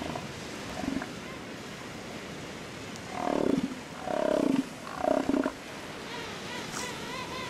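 Southern elephant seal bulls roaring as a threat display between rivals: three loud calls in quick succession, from about three to five and a half seconds in.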